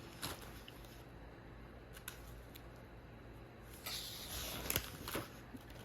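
Sketchbook pages being handled and turned: a few faint taps, then a short paper rustle about four seconds in.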